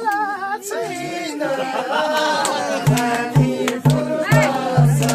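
A man sings a Nepali song with no accompaniment, then a madal, a two-headed Nepali barrel hand drum, comes in about three seconds in with deep, evenly spaced strokes, about two a second, under the voice.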